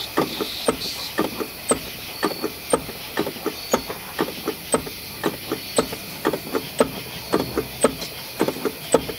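Clutch pedal being pumped repeatedly on a Nissan S13 240SX, a steady run of sharp clicks and knocks about two or three a second, building pressure to bleed air from the clutch hydraulics.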